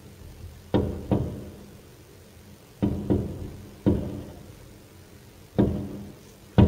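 Aerial firework shells bursting in an irregular series of about seven booms, each trailing off in a lingering echo.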